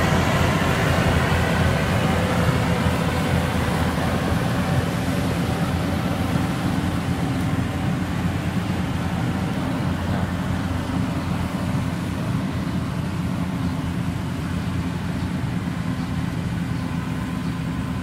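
Yanmar YH850 combine harvester running in the field while cutting rice, its diesel engine and threshing machinery giving a steady drone. It grows gradually fainter as the machine drives away.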